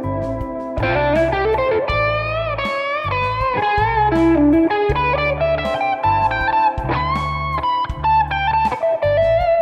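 Electric guitar playing an A minor pentatonic lead line with string bends, over a backing part with a low note pulsing about once a second and sharp drum-like hits.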